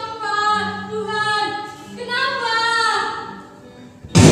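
A woman's voice singing long held, gently wavering notes in two phrases. A sudden loud thump comes near the end.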